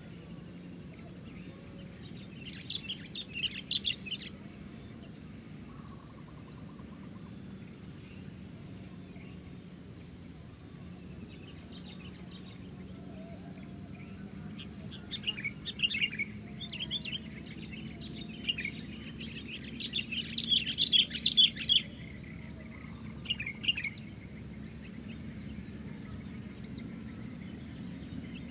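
Sooty-headed bulbul singing in short bursts of quick, bright notes, most of them in the second half. Insects make a steady high buzz underneath.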